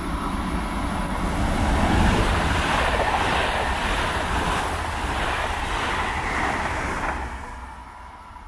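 Rhein-Ruhr-Express Siemens Desiro HC electric multiple unit running through the station without stopping: the noise of wheels on rail and rushing air builds as it comes near, holds for several seconds as it passes, then fades away near the end.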